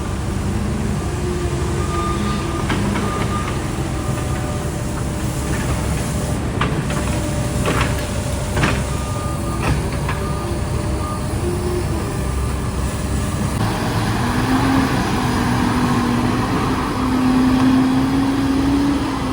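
Diesel engine of a piece of heavy construction equipment running steadily, with several sharp metallic clanks around the middle. The engine speed picks up and holds higher over the last few seconds.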